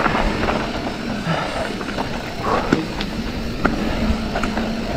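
Mountain bike ridden fast: steady wind rush over the action camera's microphone, with a few sharp knocks and rattles from the bike over rough ground.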